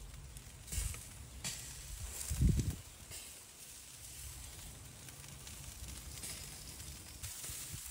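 Charcoal grill hissing and sizzling under chicken wings in a rotisserie basket as they are brushed with marinade. A brief low rumble stands out about two and a half seconds in.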